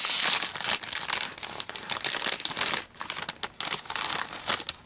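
Crinkly snack packaging being handled and opened, a dense crackling that pauses briefly and then goes on until just before the end.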